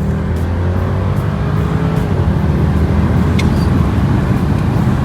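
Twin-turbo V8 of a 2013 BMW 650i accelerating, heard from inside the cabin; its pitch climbs, then drops about two seconds in as the 8-speed automatic shifts up, and keeps running under load.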